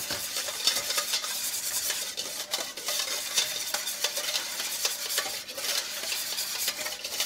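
Wire whisk beating a vinaigrette of mustard, red wine vinegar and oil in a stainless steel bowl: a continuous rapid swishing and scraping of the wires against the metal as the dressing is emulsified.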